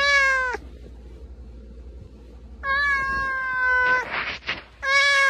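Domestic cat meowing three times with a plush toy in its mouth: a short call, then a long one held for over a second, then another short call near the end, with a brief breathy rush between the last two.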